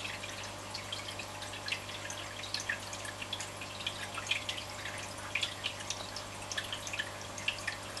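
Aquarium water bubbling and dripping in quick, irregular little plinks over a steady low hum, the sound of the tank's filter or aeration running.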